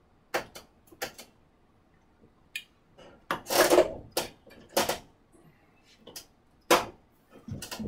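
An orange clamp being worked and tightened down on a wooden handscrew clamp and plywood base: scattered sharp clicks and knocks of clamp parts on wood, with a short scraping rub about three and a half seconds in.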